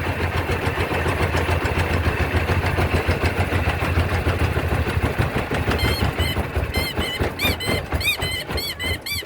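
An engine running steadily with a low, rapid pulsing. From about six seconds in, a run of high, arched squeaks repeats two to three times a second over it.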